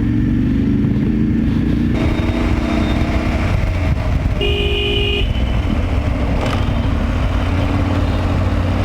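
BMW F850GS parallel-twin motorcycle engine running steadily under way. Near the middle a vehicle horn honks once, briefly.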